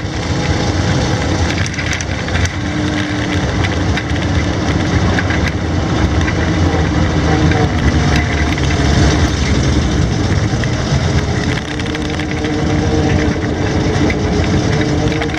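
Studebaker M29C Weasel's six-cylinder engine running steadily as the tracked vehicle drives, heard from on board, with constant rattling and clicking from the tracks and body.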